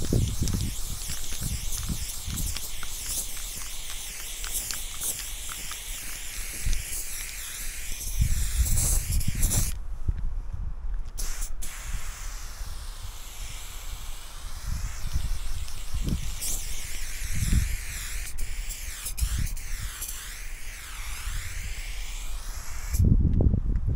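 Aerosol spray paint can spraying in long steady hisses, the spray stopping for a second or so just before the middle and again near the end. Low rumbles on the microphone come and go beneath it.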